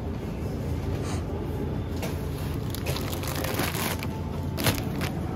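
Plastic food packaging crinkling and rustling as it is handled, in several short bursts, the sharpest near the end, over a steady low hum.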